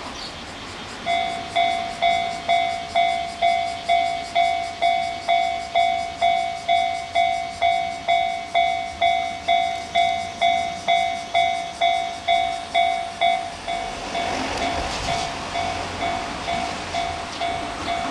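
JR Ito Line level-crossing warning bell sounding, evenly struck about twice a second, starting about a second in. From about two-thirds of the way through, the noise of an approaching train rises and the train runs past under the still-ringing bell.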